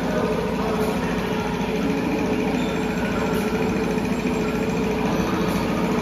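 Steady, unbroken drone of heavy kitchen machinery running.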